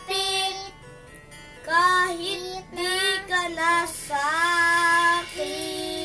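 Children singing a Filipino pop song without instruments: a few short phrases, then long held notes in the second half.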